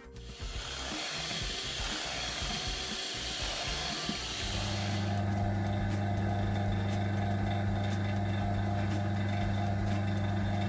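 A steady hiss for the first four seconds or so, then the vacuum pump of an investment vacuum machine starts and runs with a steady electric hum, pulling the air out of the bell jar to degas the casting investment.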